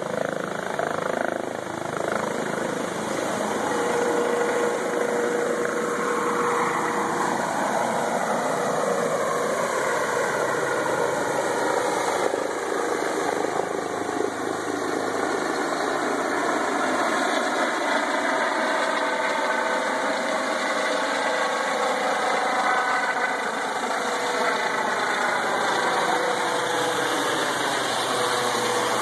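Helicopter lifting off and flying overhead: a steady, loud rotor and turbine whir whose pitch slowly shifts down and back up as it climbs away and passes above.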